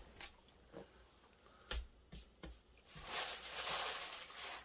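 Bubble-wrap packaging rustling and crinkling as it is handled, after a few light knocks.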